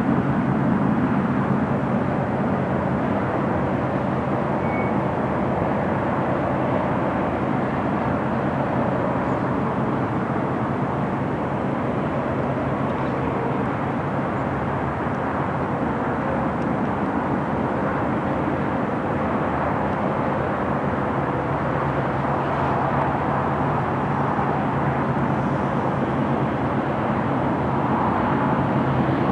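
Double-stack container train's well cars rolling past, a steady noise of steel wheels on the rails with a constant low hum underneath.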